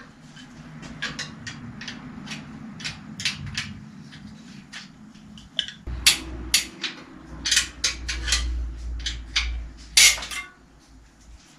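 Metal tools clinking and tapping on a bicycle's rear axle and fittings while the rear wheel is set back to tension the chain: irregular sharp metallic clicks, with two louder knocks about six and ten seconds in.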